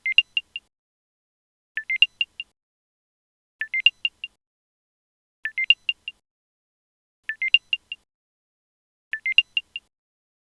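Apple AirTag's setup-complete chime: a short rising run of quick high beeps, played over and over about every two seconds, six times.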